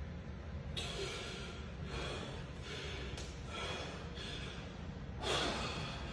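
A bodybuilder breathing hard while flexing through poses: a run of short, forceful breaths roughly once a second, the strongest about five seconds in.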